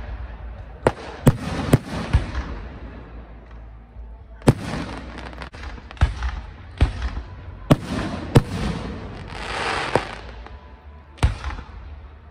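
Aerial firework shells bursting: about ten sharp bangs at irregular intervals, with a longer hiss about ten seconds in.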